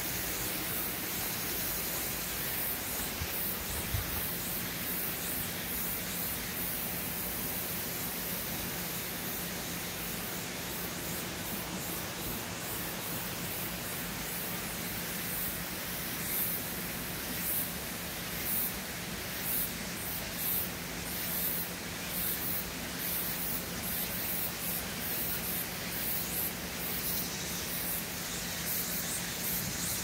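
Mountain valley stream rushing steadily over rocks, an even hiss of running water. From about halfway through, a rapid high-pitched pulsing sits above it.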